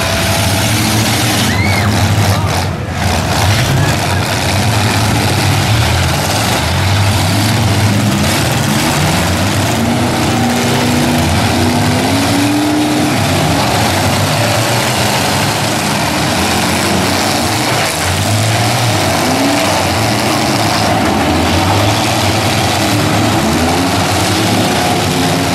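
Several demolition-derby pickup trucks' engines running loudly, repeatedly revving up and falling back in pitch.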